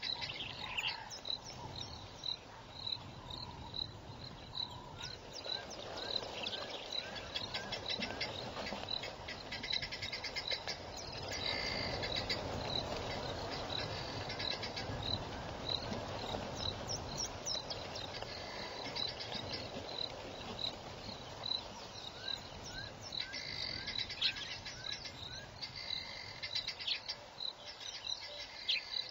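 Outdoor wildlife chorus: a high chirp repeating steadily about twice a second, with clusters of quick twittering calls now and then.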